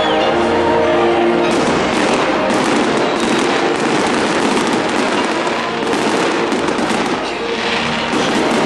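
Fireworks display going off: a dense run of crackling and popping bursts that starts about a second and a half in, over background music.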